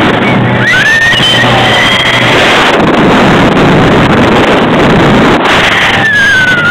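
Motorboat under way at speed, its engine running under heavy wind buffeting on the microphone and rushing water. A thin high tone slides up about a second in and holds for a second or so.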